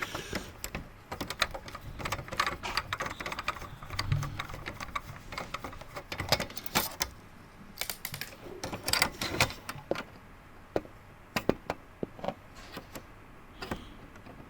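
Irregular light clicks and taps as a Phillips screwdriver works the small screws out of an all-in-one PC's metal motherboard cover.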